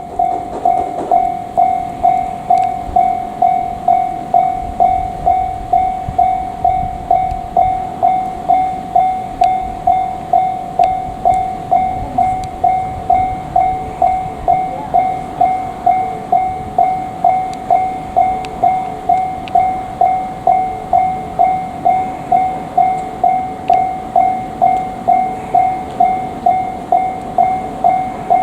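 Japanese level-crossing warning bell ringing, an electronic clang struck evenly about twice a second without a break, with a low rumble underneath.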